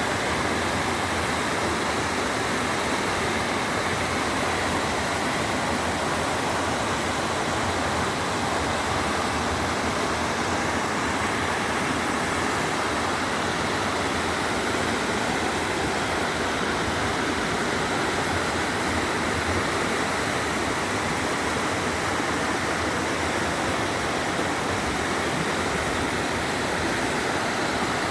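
Flowing water rushing steadily, an even, unbroken hiss with no change in level.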